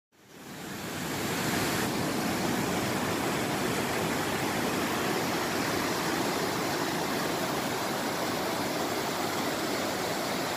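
Rapids and cascades of a river swollen by rain, a steady rushing of fast water over rock ledges that fades in over about the first second.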